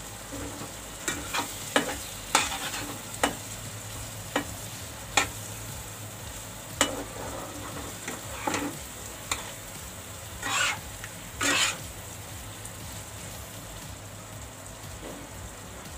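A spatula stirring chopped okra into thick masala in a nonstick kadhai: about a dozen irregular taps and scrapes against the pan, two longer scrapes about two-thirds of the way through, over a low sizzle of frying.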